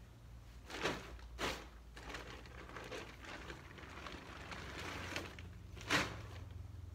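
Rustling and crinkling of a deflated air tent's fabric being handled and folded, with three sharper swishes: about a second in, half a second after that, and a louder one near the end.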